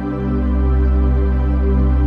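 Background music: a slow, ambient new-age piece of long held notes over a deep, sustained bass.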